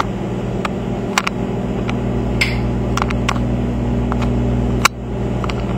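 Microwave oven running with a bar of soap inside, giving a steady low electrical hum, with a few sharp clicks scattered through it and a brief dip in level just before the end.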